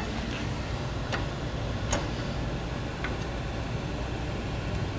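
A few separate sharp metal clicks and clinks, about four in five seconds, from hand tools working on the forklift's front end, over a steady low hum.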